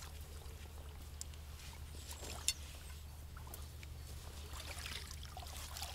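Fabric carp-fishing gear rustling as it is handled on the ground, with scattered small clicks and one sharp click about two and a half seconds in, over a steady low hum.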